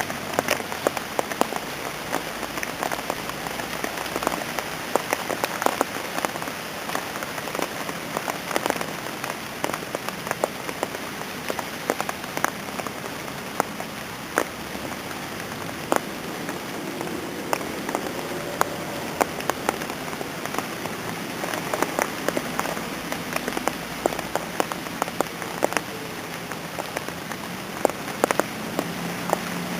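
Steady rain falling, with frequent sharp taps of individual drops landing close by.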